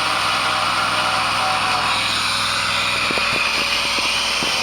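A small engine or motor running steadily with a steady hiss, and a few sharp knocks about three to four seconds in.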